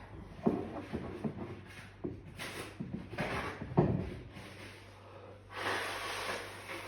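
A person breathing hard through the nose during a sneezing fit: a few short, sharp catches of breath, then a longer noisy breath near the end.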